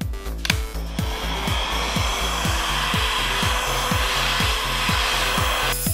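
Heat gun blowing hot air onto a sheet of acrylic to soften it for bending: a steady rushing hiss that starts about a second in and stops abruptly near the end. Background music with a steady beat runs underneath.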